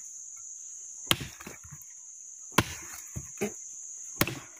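A long-handled blade chopping into the base of a small woody stump: three sharp chops about a second and a half apart, with a couple of lighter knocks between the second and third.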